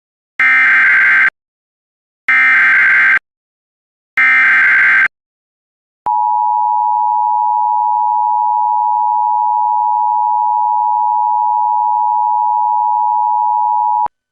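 Emergency Alert System tones: three short buzzing bursts of SAME header data about two seconds apart, then the long steady two-tone attention signal of about eight seconds. Together they announce an immediate evacuation alert.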